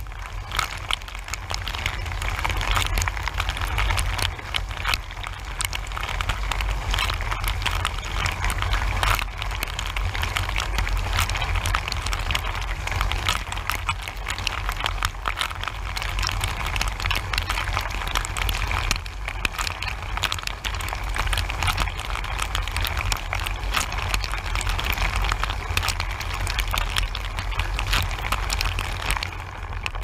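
Dishwasher wash cycle heard from inside the tub: the circulation pump hums low and steady while the spray arm throws water that hisses and splashes against the racks and walls. Near the end the spraying dies away.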